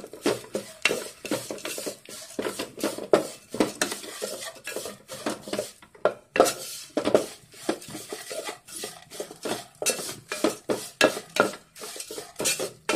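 Wooden slotted spatula stirring and scraping dry beaten rice flakes (aval) as they roast in a little ghee in a metal pot: a quick, uneven run of scrapes and rattles against the pot.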